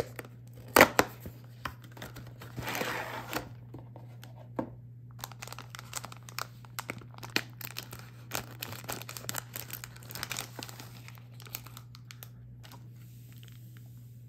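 The cardboard box of a Kracie Popin Cookin sushi candy kit is torn open with a sharp rip about a second in, followed by paper and plastic rustling. From about five seconds, scissors cut through a plastic bag with a run of quick crinkles and snips, then sachets and a plastic tray rustle faintly near the end.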